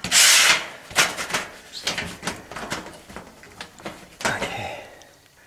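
Stainless triple-wall chimney pipe sections scraping and knocking as the upper pipe is slid down into the lower one: a loud scrape at the start, several sharp knocks, and another scrape about four seconds in.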